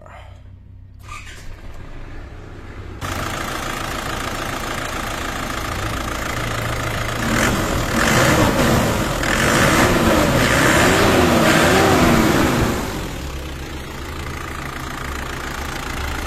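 Isuzu D-Max diesel engine running at idle with a steady low hum, after a fuel-line leak that let air into the fuel system was fixed. Its sound grows louder about three seconds in, and from about seven to thirteen seconds a louder stretch carries a wavering tone over the idle.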